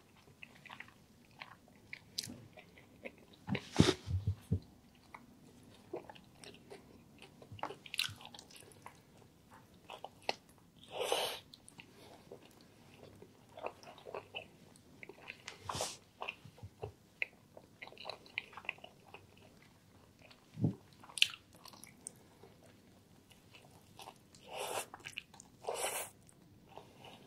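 Close-miked chewing of a chicken and mushroom sandwich in a grilled sub roll: scattered sharp wet mouth clicks and a few longer crackly bites. She bites into the sandwich again near the end.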